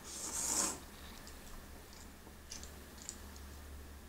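Pho rice noodles slurped in one loud slurp lasting under a second, then chewing with a few faint, scattered mouth clicks.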